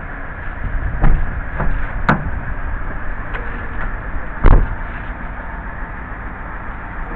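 Clunks and knocks from a Toyota Tundra pickup as its driver's door is shut: a few sharp knocks in the first couple of seconds, then a heavier thud about four and a half seconds in.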